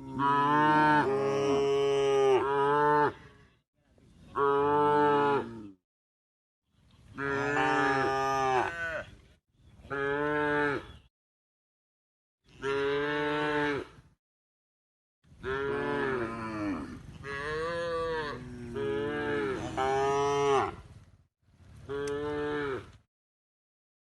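Cows mooing in a series of long, pitched calls, about seven in a row. Each call breaks off into a short gap of dead silence.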